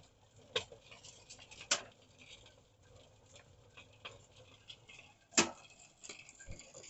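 Faint, sparse light clicks and patter, with three sharper clicks: about half a second in, just under two seconds in, and about five and a half seconds in.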